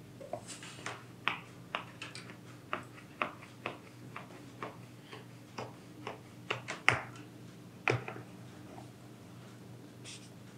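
Knife cutting through layered paxlava dough: a string of sharp clicks, roughly two a second, uneven in loudness, the loudest about two-thirds of the way through.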